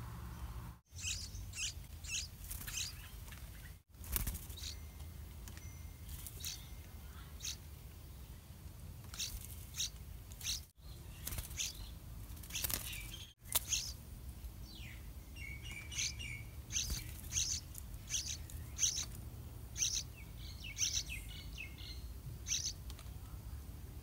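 Yellow-vented bulbul nestling begging for food: short, high chirps repeated in quick runs, over and over.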